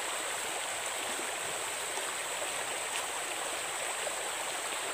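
Shallow stream running: a steady rush of flowing water, with a steady high-pitched hiss above it.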